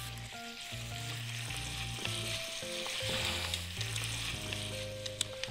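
Thin-sliced pork belly sizzling in hot cooking oil in a frying pan as it is stirred with wooden chopsticks, with a steady hiss and a few light clicks about five seconds in. Soft background music plays underneath.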